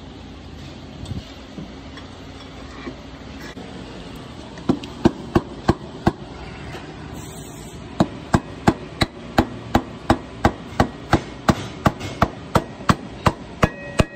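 Hammer tapping on metal, sharp even strikes, as the front axle is driven through the wheel hub and fork. A few taps come about five seconds in, then a steady run of about three a second through the rest.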